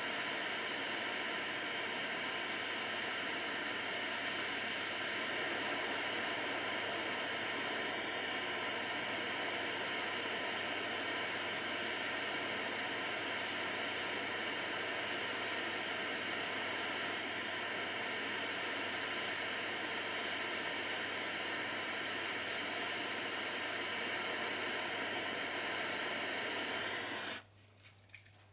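Steady hiss of a soldering flame heating a gold sheet with filigree wire. It cuts off abruptly near the end, followed by a few light clicks.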